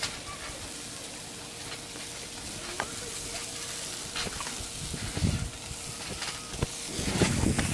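Chicken wings sizzling on a charcoal grill, with metal tongs clicking against the grate now and then as pieces are turned. A louder low rumble comes in near the end.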